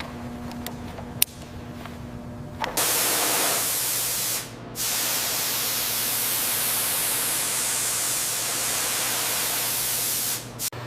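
A loud, steady spray hiss starts about three seconds in, breaks off briefly, then resumes and runs until just before the end. Before it comes a low shop hum with a few light clicks.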